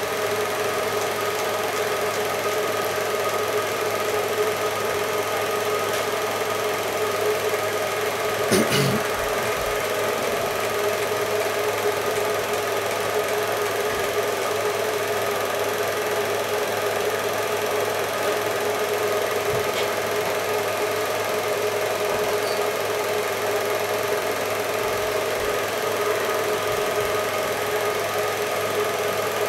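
Cine film projector running, a steady mechanical whirr with a constant hum, and a single brief knock about eight and a half seconds in.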